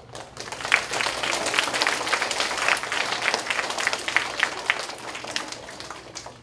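A large audience of schoolchildren applauding: a dense patter of many hands clapping that starts suddenly and tapers off over the last second or so.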